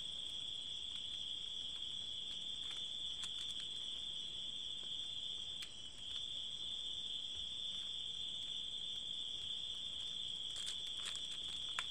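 Crickets trilling steadily in the background, a continuous high-pitched tone with no breaks. A few faint clicks and rustles of plastic strips being handled come through, most near the end.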